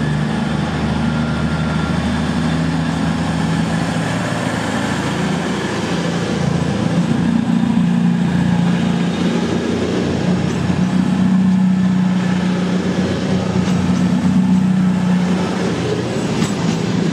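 CrossCountry Voyager diesel multiple unit moving along the platform, its underfloor diesel engines giving a steady loud hum that rises and falls a little in pitch, over the rumble of the train running on the rails.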